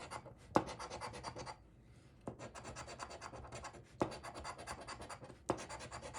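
Scratch-off lottery ticket being scratched: quick rapid strokes rasping the coating off the card, in several runs separated by short pauses. A sharper tap marks the start of four of the runs.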